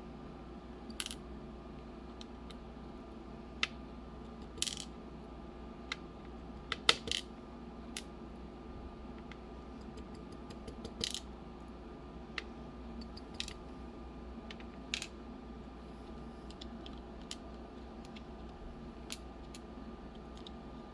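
Scattered small metal clicks and clinks, the loudest about seven seconds in, from small tools and parts of a CX-5 high-security lock cylinder being handled as it is taken apart, over a steady background hum.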